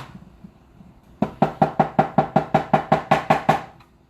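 A fast, even run of about sixteen sharp knocks, some six or seven a second, each with a short ringing tone. The knocks start about a second in and stop shortly before the end. They come from a kitchen utensil being struck against a hard surface while tzatziki is made.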